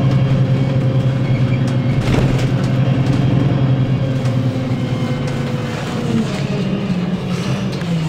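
VDL bus's diesel engine running under way with a steady drone, which steps down in pitch twice in the last couple of seconds as the engine speed drops.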